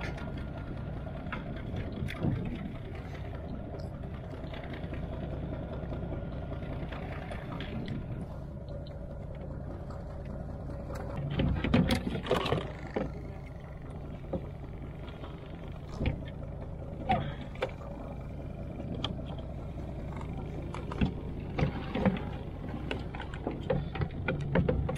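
Boat engines idling with a low, steady hum. From about eleven seconds in, a run of knocks and clatters as gear is handled in the kayak.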